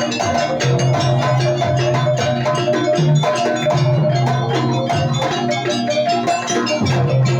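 Gamelan-style ensemble music accompanying a dance: struck metal keys and drums in a dense, fast pattern over a low sustained tone.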